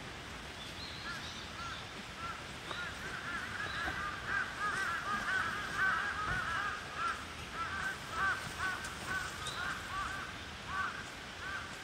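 Birds calling outdoors: a fast, overlapping run of short, arched calls that grows busiest in the middle and thins out toward the end.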